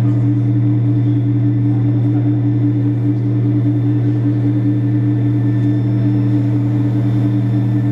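Deep, steady electronic drone played over a show's sound system: a few low notes held without a break, the highest of them wavering slightly.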